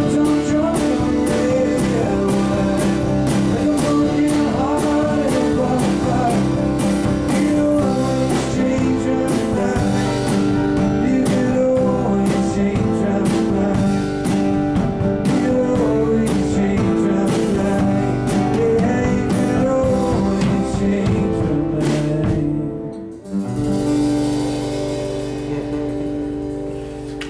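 Live band playing a song with singing and guitar over a steady beat. About three-quarters of the way through it stops on a final chord that rings out and fades for several seconds.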